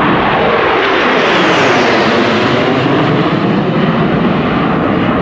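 Four F-16 fighter jets flying over in close formation: a loud, steady jet roar whose pitch slides downward as they pass overhead.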